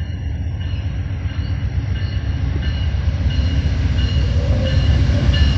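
The California Zephyr approaching behind its three GE Genesis diesel locomotives, two P42DCs and a P40DC. It makes a low, steady rumble that grows louder as the train nears.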